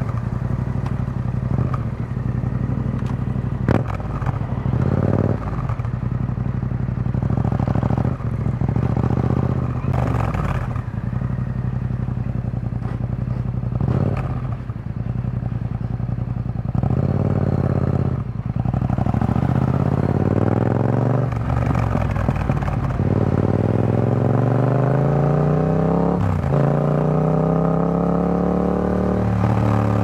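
Yamaha XSR700's parallel-twin engine through an Akrapovic carbon full exhaust with the dB killer fitted, ridden at low revs in slow traffic with several brief changes in the note. In the last third the revs climb steadily for several seconds, then drop sharply near the end as the bike shifts up.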